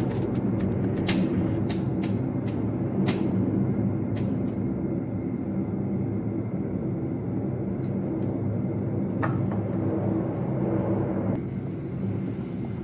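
A steady low rumble runs under a few sharp clicks of a wooden spatula against a stainless steel pan as a thick sauce is stirred.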